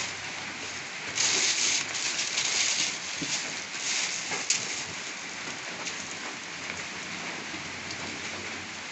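Clear plastic packaging being crinkled and rustled by hand, in bursts that are loudest from about a second in and again around four seconds, with a sharp click near the middle.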